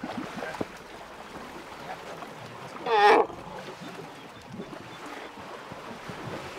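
An African elephant calf gives one short, high-pitched trumpet about three seconds in, over faint splashing of water.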